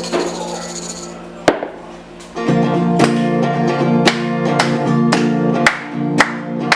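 Acoustic guitar strumming an instrumental passage of a song, with a sharp hit about a second and a half in. From about two and a half seconds in, the music swells and sharp percussive beats come roughly once a second.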